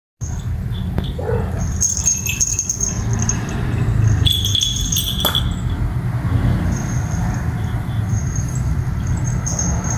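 Small collar bell jingling on and off as cats and kittens move about, over a steady low rumble.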